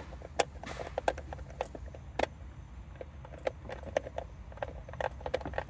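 Scattered light clicks and taps at irregular spacing, from small fuel pump parts being handled and fitted by hand, over a low steady hum.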